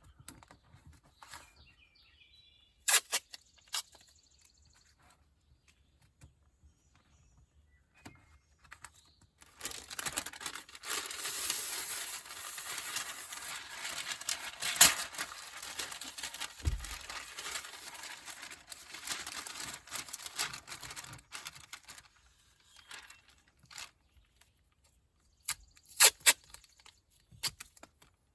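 Masking tape being pulled off the roll and torn, a long rasping stretch in the middle, with a few sharp clicks near the start and near the end.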